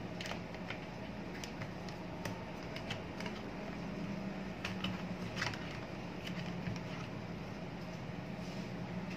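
Scattered light plastic clicks and knocks as a desk fan's front grille is twisted loose and lifted off, over a steady low hum.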